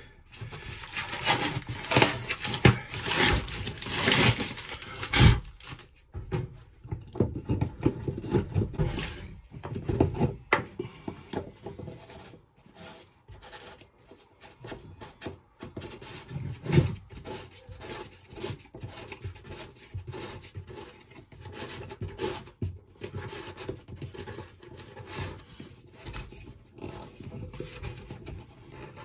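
Irregular scraping and rubbing of hand work at a shower tray's waste outlet and the plywood floor around it. It is busiest in the first six seconds, then thins to lighter rubs and small knocks.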